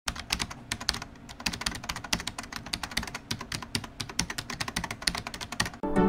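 Rapid, irregular clicks, several a second, then music starts just before the end.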